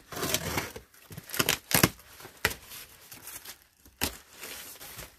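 A cardboard box being opened: packing tape slit and torn with a box cutter, flaps pulled back, and the plastic bubble wrap inside crinkling, with several sharp rips and snaps.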